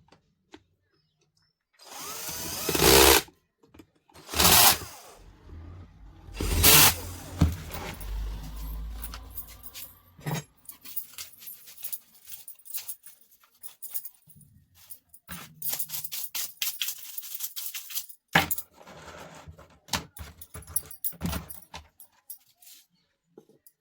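Workbench handling of table fan parts and tools: a few loud, sudden noisy bursts in the first seven seconds, then scattered clicks, knocks and scraping.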